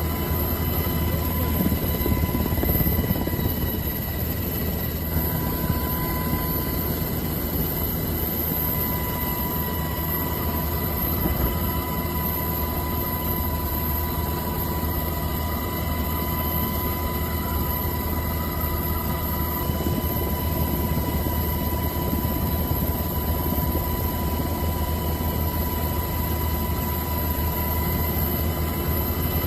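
A steady, unchanging engine drone with a deep rumble and a constant high whine.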